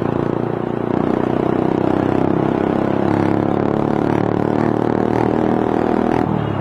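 Motorcycle engine running through an aftermarket Akrapovic exhaust pipe while riding, a steady exhaust note that rises and falls a little with the throttle and eases off about six seconds in.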